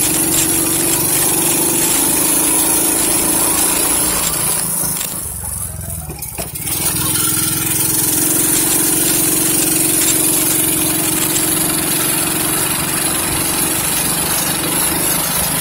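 Quad bike (ATV) engine running steadily while riding. Its note drops away for about two seconds near the middle, then comes back.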